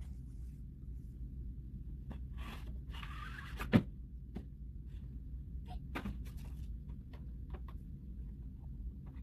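Cardboard Surface Pro 7 retail box being opened and handled: rustling as the lid slides off, one sharp thump a little under four seconds in, then light clicks and rustles of the packaging, over a low steady hum.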